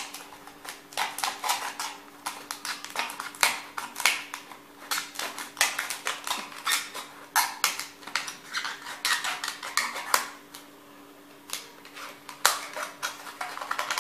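A plastic bottle being handled and poked at its neck with a pen: a run of irregular crinkles, clicks and taps of thin plastic, over a faint steady hum.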